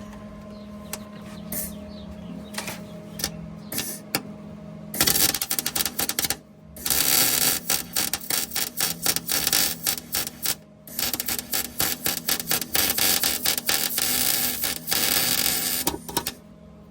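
Wire-feed (MIG) welder arc crackling and sizzling as beads are laid on the exhaust and muffler hangers, in three runs of a few seconds each that start about five seconds in, with brief pauses between them. A faint steady low hum sits under it.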